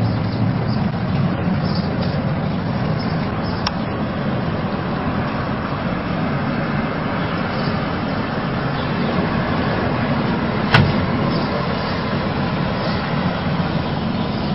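Steady low rumble of car and street noise, with one sharp knock about eleven seconds in.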